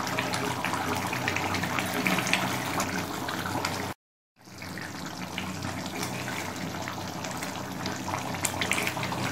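Kofta curry simmering in an aluminium pan on a gas stove, its thick gravy bubbling and popping with small crackles throughout. The sound drops out completely for about half a second around four seconds in, then returns.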